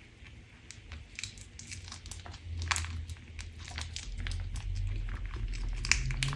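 Crunch slime being squeezed and pressed by hand, crackling with many small irregular clicks and pops that grow denser and louder in the second half.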